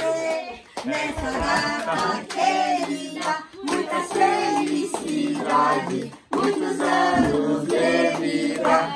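A group of people singing a birthday song together, clapping along in time.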